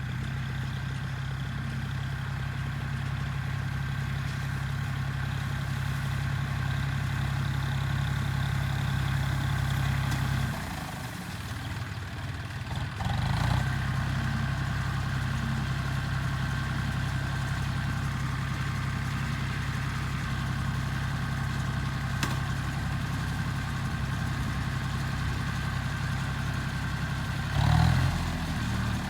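A motor running steadily with a low, even hum. It drops away for a couple of seconds about ten seconds in, then picks up again with a brief louder surge, and surges once more near the end.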